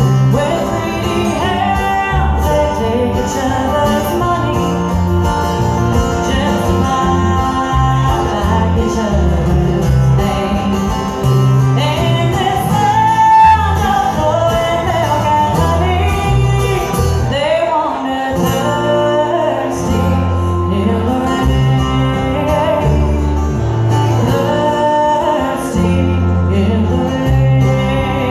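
Live bluegrass band playing a song: a woman sings lead over banjo, acoustic guitar and upright bass, with the bass plucking steady low notes underneath.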